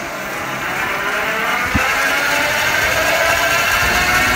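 Electric bike's motor whining as the bike speeds up, the whine rising slowly in pitch and growing louder. There is a single sharp click a little under two seconds in.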